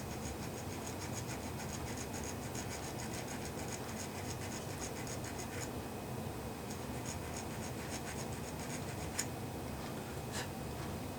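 Small metal file rasping on a tiny metal part of a quartz clock movement in quick, short strokes, about five a second. About halfway through it pauses, then a few slower strokes and a couple of light clicks follow.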